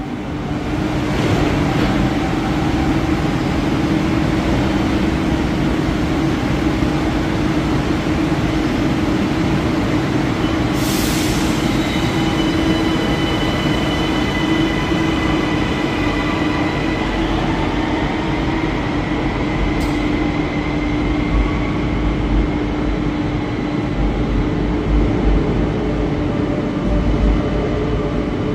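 Electric underground commuter train on line L7 at the platform: a steady hum, then a short burst of air hiss about eleven seconds in. After that comes a whine from the electric drive, and a low rumble that grows near the end as the train pulls out of the station.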